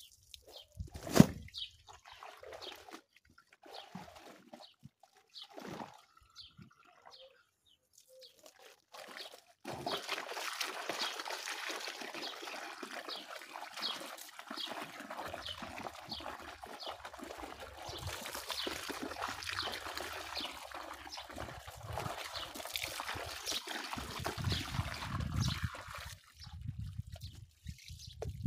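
A few scattered knocks and a loud thump, then, from about ten seconds in, water running and splashing steadily.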